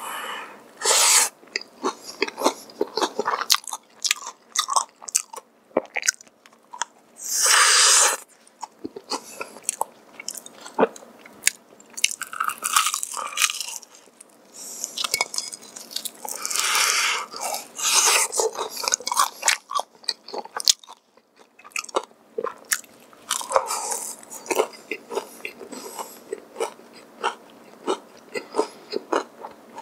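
Close-miked eating of crispy Kyochon Honey Combo fried chicken: repeated crunching bites and chewing, with some longer, louder crunches.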